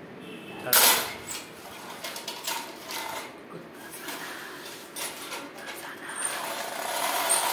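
A toy tractor knocked down onto a tiled floor about a second in, then clicking and rattling as it is pushed about on its toothed wheels. A rising rush of noise swells near the end.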